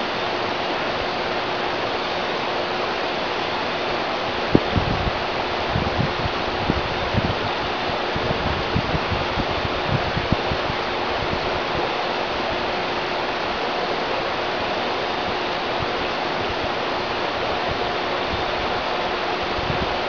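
Steady rushing of flowing river water, with a run of low bumps and thuds for several seconds starting about four seconds in, and a faint steady hum underneath.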